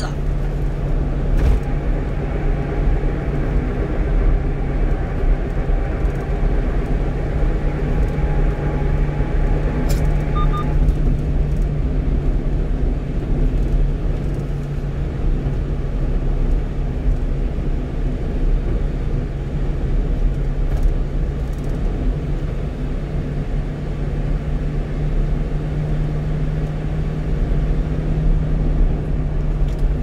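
A 1-ton truck cruising on the expressway, heard from inside the cab: a steady engine drone with low hum and continuous tyre and road noise.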